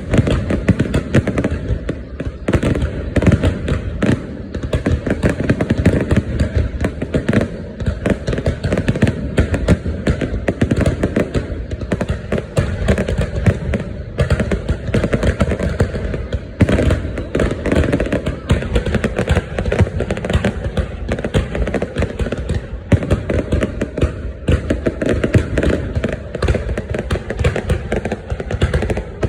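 A dense, unbroken barrage of fireworks: many bangs and crackles overlapping with no pause.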